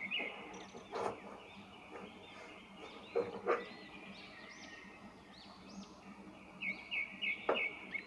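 A kitchen knife cutting through a peeled potato onto a plastic cutting board, as it is sliced into French-fry strips. There are a few separate cuts: about a second in, twice around three seconds in, and near the end. Birds chirp in the background.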